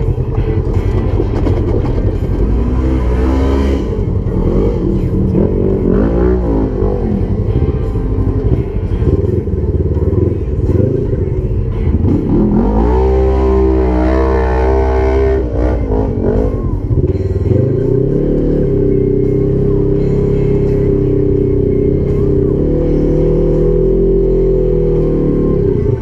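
Polaris RZR XP 1000 side-by-side's twin-cylinder engine running on the trail. It revs up and down about halfway through, then holds a steadier pitch.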